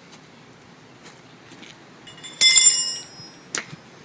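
A sharp metallic strike about two and a half seconds in that rings for about half a second, like a bell. A single click follows about a second later.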